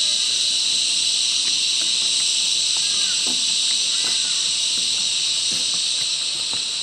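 Loud, steady chorus of cicadas: a dense, high-pitched shrill buzz that holds without a break.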